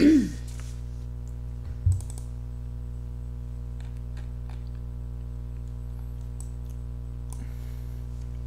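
Scattered clicks of typing on a laptop keyboard over a steady electrical hum, with a short loud sound falling in pitch at the start and a thump about two seconds in.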